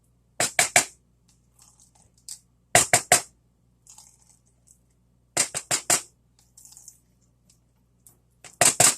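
A spoon knocking against a container while mayonnaise is scooped out: four quick clusters of three or four sharp knocks, roughly every two and a half seconds, with light scraping between them.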